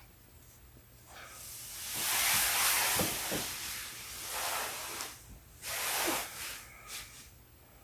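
A sleeping woman's loud, hissing breaths close to the microphone: one long breath swelling over about four seconds, then a shorter one near six seconds in and a small puff just after.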